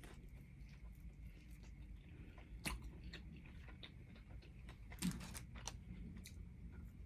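A person chewing and biting food close to the microphone, with two sharper crunchy bites: one about a third of the way in and a louder one about two-thirds in.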